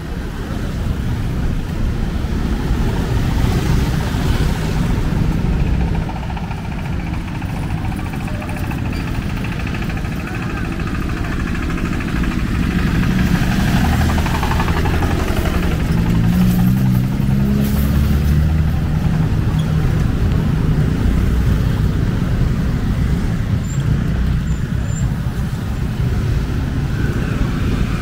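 Busy street traffic: motorcycles and scooters running past close by. Around the middle a louder engine passes, plausibly the single-cylinder engine of a two-wheel hand tractor hauling a trailer.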